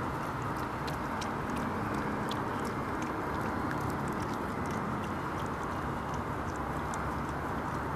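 Red fox licking and chewing raw egg off a bare hand: a scatter of small wet clicks and smacks over a steady background hiss.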